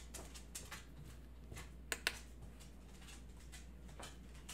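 Faint clicks and ticks of a folding knife being handled and pressed onto a digital edge-sharpness tester, with two sharper clicks close together about two seconds in.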